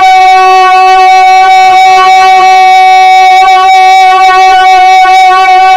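A man's voice holding one long sung note in a naat recitation, very loud through a public-address system. The pitch holds steady and then wavers slightly from about halfway through.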